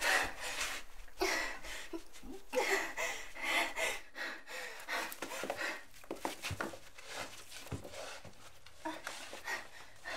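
A young woman panting hard in quick, breathy gasps, easing off after about four seconds. After that come softer breaths and small clicks and scuffs as she handles a cord tied to her.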